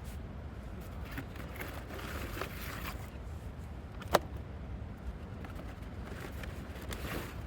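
Small cardboard fire crackling and popping in the rain, with scattered light crackles and one sharp snap about four seconds in, over a steady low rumble.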